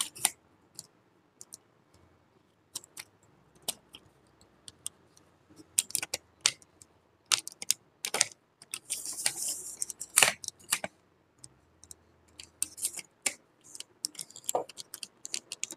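Plastic flip-lock clamps and aluminium leg sections of a camera tripod being handled: scattered irregular clicks and clacks as the leg locks are opened and the legs are extended, with a brief sliding rasp about nine seconds in.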